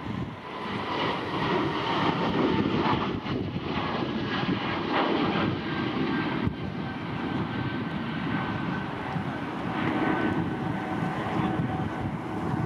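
Aircraft engines of a plane taking off or landing close by: a loud, steady rush of engine noise that swells over the first two seconds, with a faint whine slowly falling in pitch as it passes.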